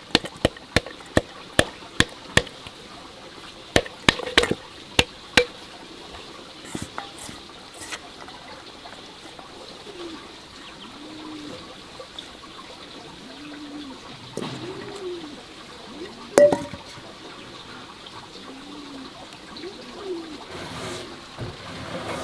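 Over a dozen sharp knocks in quick succession during the first five seconds. From about ten seconds in, a dove coos repeatedly with low, rounded calls every second or two.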